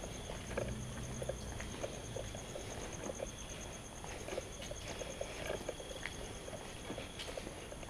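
Footsteps on a bare concrete floor, a scatter of short, irregular knocks, over a steady high pulsing trill.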